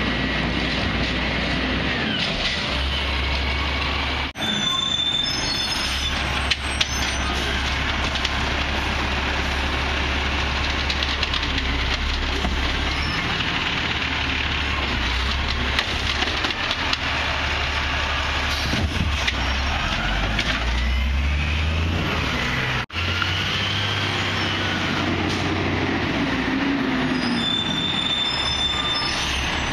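Peterbilt garbage trucks with Amrep automated side-loader bodies running, their engines humming steadily while the hydraulic arms lift residential carts and dump them into the hopper, with a few sharp knocks and clatter as the carts are shaken out.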